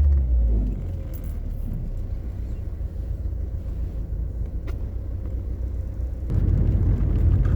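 Low rumble of a car on the move; it eases about a second in and grows louder again about six seconds in.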